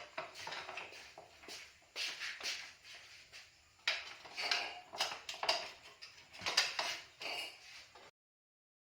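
Metal parts and hand tools clinking, scraping and rattling in irregular bursts as they are handled, cutting off suddenly about eight seconds in.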